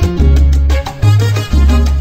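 Romantic salsa music playing, with long bass notes under steady percussion and no singing.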